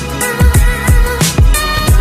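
Background music with a steady beat, deep falling bass-drum hits and a sustained melody.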